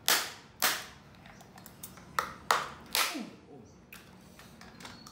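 Five sharp cracks in quick succession over about three seconds, each dying away quickly; the first two are the loudest.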